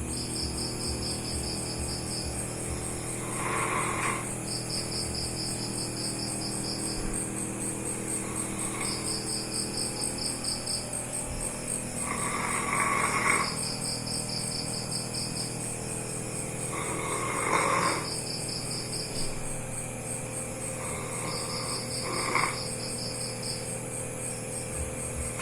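Sleeping dog snoring loudly, one snore every few seconds. A high pulsing chirp trills on and off in the background.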